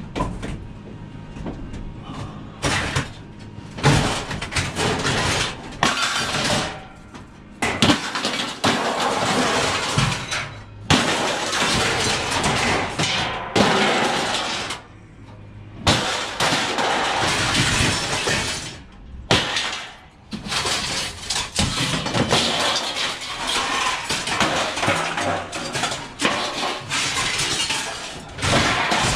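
Short scrap steel clattering and crashing onto a metal pile in repeated bouts, each a dense run of metal-on-metal impacts, with brief pauses between loads.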